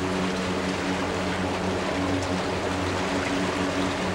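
Boat engine running at a steady pitch, with water rushing and splashing along the hull as the boat moves.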